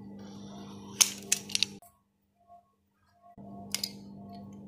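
Sharp plastic clicks and snaps of a blister pack being opened to free a fountain pen: a quick cluster about a second in and a second short pair near the end. Under them runs a steady low hum that drops out briefly in the middle.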